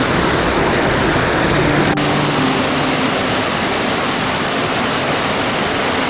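Steady, loud rushing of a waterfall, falling water heard close by.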